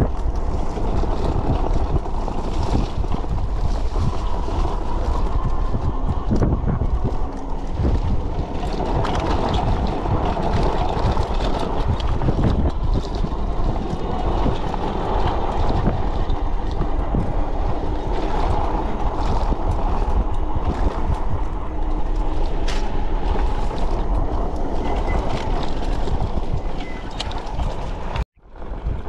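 HeyBike Mars fat-tire e-bike riding over a rough dirt-and-rock trail: a steady, dense rattle and clatter of the bike and its tires on the ground, over a low rumble. The sound cuts out abruptly for a moment about a second before the end.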